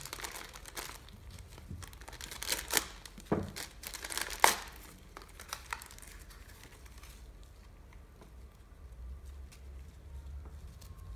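Clear plastic packet crinkling in scattered sharp crackles as gloved hands open it to take out new rubber O-ring seals for an oil filter. The crackling dies down after about six seconds.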